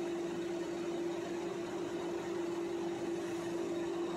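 Steady mechanical hum holding one constant tone over a low, even background rush.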